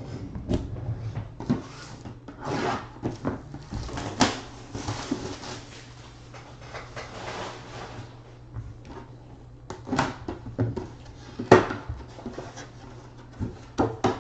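A cardboard box being slit open with a knife and unpacked: scraping and rubbing of the blade and packaging, with scattered sharp knocks and clicks, the loudest about four, ten and eleven and a half seconds in, over a steady low hum.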